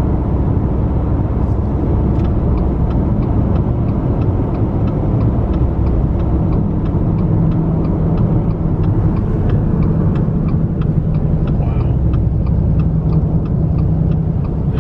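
Road and engine noise heard from inside a moving car's cabin, steady, with a turn signal ticking about twice a second.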